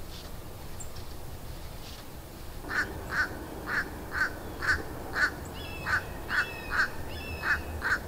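A crow cawing in a steady series of about a dozen short caws, roughly two a second, starting about three seconds in.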